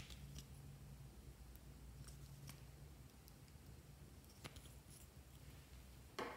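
Near silence with a few faint, sparse clicks as a plastic liquid-lipstick tube and its applicator wand are handled over a glass bowl of slime. A louder short rustling noise starts just before the end.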